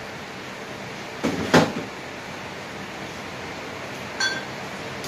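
Kitchen handling sounds over a steady hiss: a couple of sharp knocks about a second and a half in, then a brief ringing glass clink about four seconds in as a bottle is taken down from a crowded shelf.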